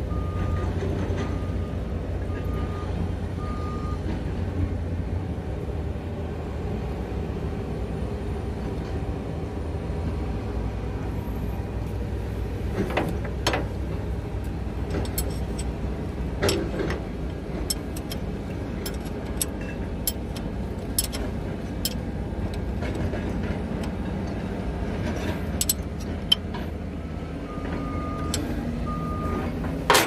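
A steady low machine drone runs throughout, with a repeated electronic beep in the first few seconds and again near the end. Sharp metallic clicks and taps come through the middle, fitting hand work on the excavator's fuel-line fittings.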